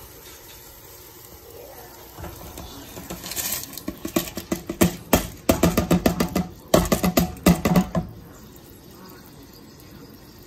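Rice being tipped and shaken out of a clear plastic container into a saucepan of boiling water, with a dense run of clattering taps of plastic against the pot from about three to eight seconds in. The boiling water hisses steadily underneath.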